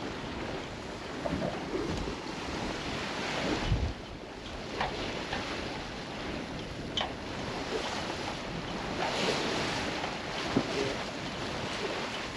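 Wind buffeting the microphone and water rushing along the hull of a sailboat under sail in a fresh breeze. A few short sharp knocks are heard, with a dull thump about four seconds in.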